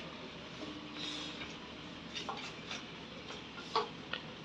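Faint, scattered soft taps and clicks from hands working atta dough in earthenware bowls, over a low background hiss.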